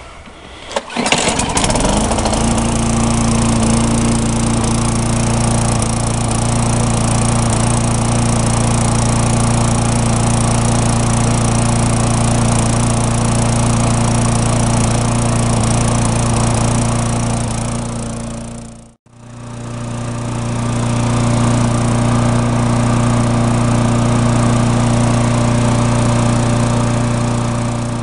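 Tecumseh four-stroke single-cylinder lawn mower engine starting about two seconds in, then running at a steady, even speed with no surging, its carburetor just cleaned and fitted with a new emulsion-tube O-ring. About two-thirds through the sound cuts out briefly, then the engine is running at the same steady speed again.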